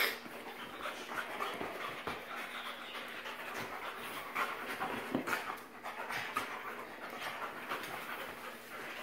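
A wolfdog and a Labradoodle panting as they play-wrestle, with short, irregular scuffling sounds from their bodies and paws on a leather sofa.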